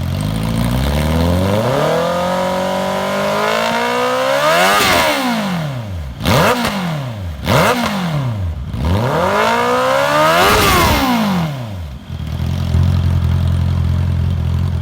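A 2021 Honda CB650R's inline-four engine, breathing through an aftermarket Destroyer exhaust, is revved while standing still. It climbs slowly to high revs and drops back, gets two quick throttle blips, then makes another long climb and falls back to a steady idle near the end.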